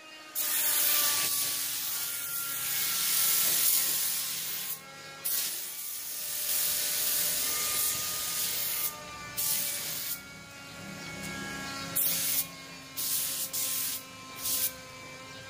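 Compressed-air spray gun spraying clear coat: a hiss of about four seconds, a second pass of about three seconds, then several short bursts near the end as the trigger is pulled and released. A fainter steady hum runs beneath.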